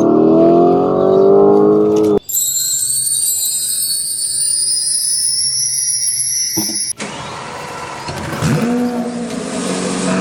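Car sound effects cut together: an engine revving with rising pitch that cuts off suddenly about two seconds in, then a high rising whine for about five seconds, then another engine sound with a brief drop in pitch.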